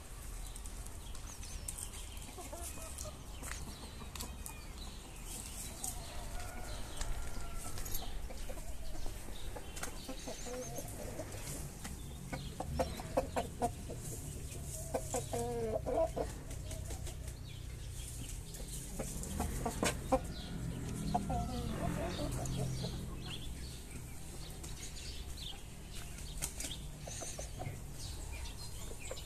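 Aseel chickens clucking and calling, loudest in two bouts around the middle, over a low steady hum.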